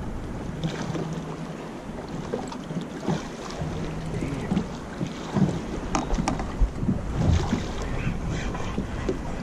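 Choppy sea water sloshing and slapping against a small boat's hull, with wind buffeting the microphone. A few sharp splashes or knocks come in the second half.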